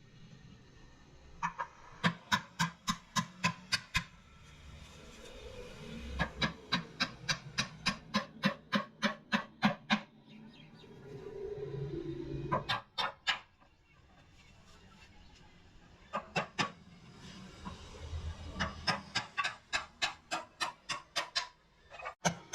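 Hammer blows on wood, in quick runs of about four to five strikes a second with pauses between the runs.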